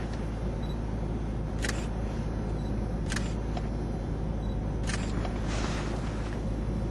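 Steady low drone of a Vauxhall Monaro's V8 engine and tyres on a rough road, heard from inside the cabin, with four sharp clicks between about one and a half and five seconds in.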